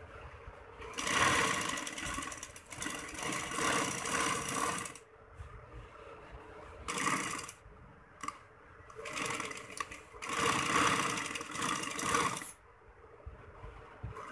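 Domestic sewing machine stitching net fabric along a lace edge in stop-start runs: about four seconds of sewing, a brief half-second burst, then another run of about three and a half seconds, with short pauses between.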